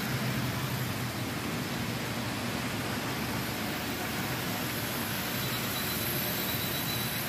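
HO scale model train running on the layout's track, a steady whir of the small motor and wheels.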